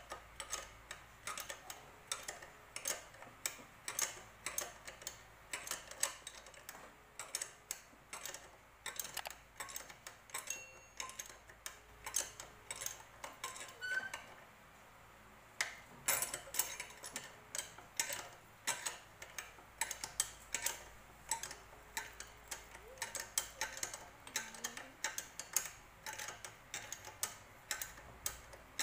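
Ratchet wrench clicking in quick runs of ticks, a few a second, as the bolts of a motorcycle chain sprocket are turned; a short pause about halfway through.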